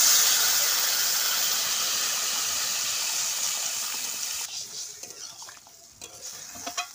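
Water poured into a hot kadai of oil-fried vegetables, sizzling and hissing loudly. The hiss fades and dies away about four and a half seconds in. A metal spatula then stirs the curry with faint scrapes and clicks.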